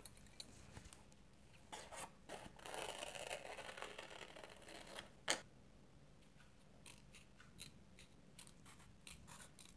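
Scissors snipping paper, faintly, as a small circle is cut out of a sheet of coloured paper, with soft rustling of the sheet early on and one sharp click about five seconds in.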